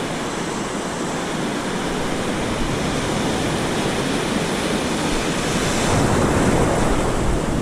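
Ocean surf washing on the beach, with wind buffeting the microphone; it grows somewhat louder near the end.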